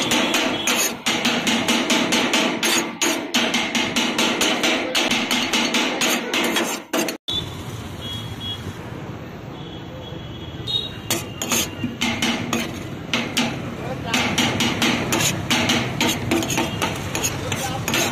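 Metal cleaver and spatula chopping shawarma chicken on a steel flat-top griddle: rapid metallic strikes, about five a second. They stop for a few seconds around the middle, then resume.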